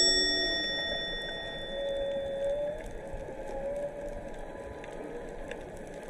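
Humpback whale song heard underwater: faint, drawn-out moaning calls that slide slowly in pitch, over the steady hiss and crackle of the sea. A bell-like chime rings out at the start and fades over the first couple of seconds.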